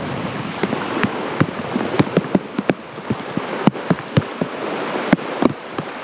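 Rain falling steadily, with irregular sharp taps of drops striking close by.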